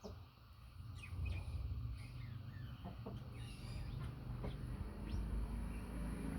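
Birds giving short, scattered chirps, a dozen or so quick falling calls, over a steady low rumble that grows louder toward the end.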